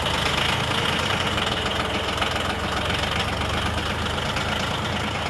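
Yanmar compact tractor's diesel engine running steadily at a low, even speed while its front loader lifts a heavy part.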